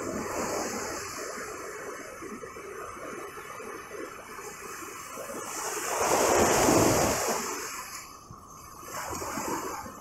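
Mediterranean surf breaking and washing up the beach. The loudest wave crashes about six seconds in, and a smaller one comes near the end.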